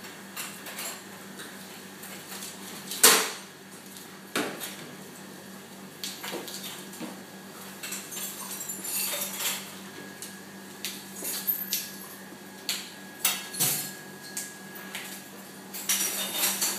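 Scattered clinks and knocks of cutlery and plates while a dish is plated, with one loud knock about 3 seconds in and a busier run of clinks near the end, over a steady low hum.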